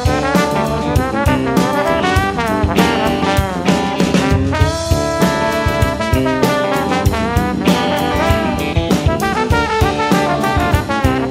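Background music: upbeat brass-led jazz, with horn lines over a drum kit keeping a steady beat.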